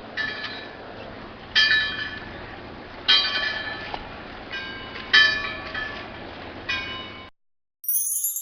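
Buoy bell clanging about six times at uneven intervals, each strike ringing out over a steady background hiss. Near the end the bell and hiss cut off, and after a short gap a brighter jingling begins.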